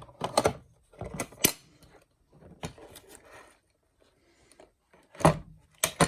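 Packaging of a torque wrench kit being opened by hand: scattered sharp clicks and knocks with scratchy rustling in between, the loudest knocks near the start and again near the end.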